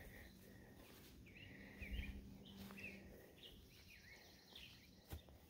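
Faint birdsong: a run of short chirps and warbled notes from about a second in until near the end, with a soft knock about two seconds in and a sharp click near the end.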